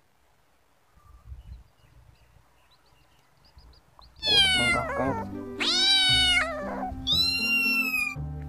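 Near silence for about four seconds, then a cat meowing three times in a row, each call bending in pitch and the last one higher, over background music with a low steady drone.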